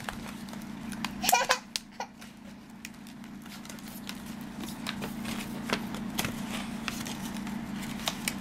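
Small clicks and rustles of hands handling flocked toy cat figures and their cardboard display tray, over a steady low hum. A brief voice sound comes about a second in.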